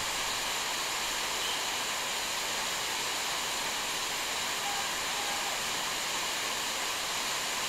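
Waterfall pouring over rocks: a steady, even rush of falling white water.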